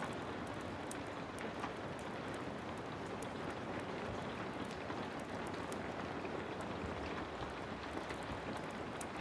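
Steady heavy rain with scattered sharp crackles and pops from a wood fire.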